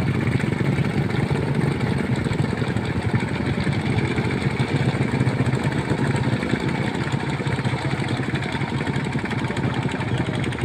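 An engine running steadily at an even, fast beat, with no revving or change in speed.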